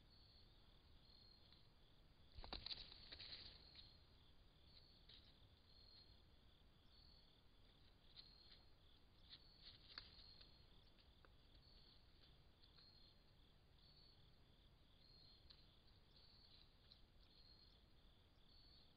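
Faint insect chirping, a short high chirp repeated about once a second, typical of a cricket. A brief crackling rustle comes about two and a half seconds in, and a few soft clicks come near the middle.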